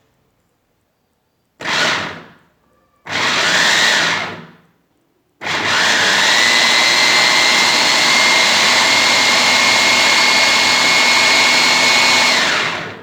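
Kitchen food chopper's motor running in pulses: two short bursts, then a steady run of about seven seconds with a constant whine, each run winding down as it stops.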